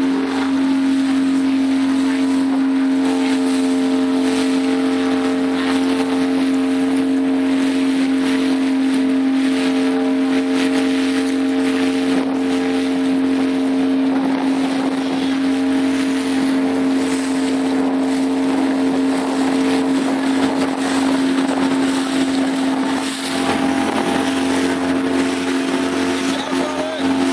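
Motorboat engine running at a steady speed, holding one even pitch, over a haze of wind and water noise.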